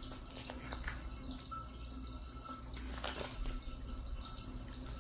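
A picture book's paper page being turned, a short rustle about three seconds in, with a few soft ticks before it over a steady low room hum.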